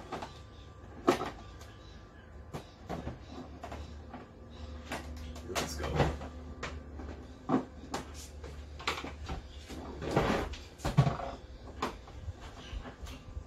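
Plastic back casing of a flat-screen TV being handled and shifted on a wooden plank floor: irregular knocks, clicks and scrapes, with sharp knocks about a second in and near the end, and a low rumble as it is moved over the boards.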